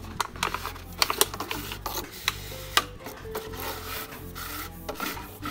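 Plastic water bottles being slid onto a long pole, the plastic rubbing and scraping along it, with a scatter of sharp clicks and knocks as the bottles catch and bump.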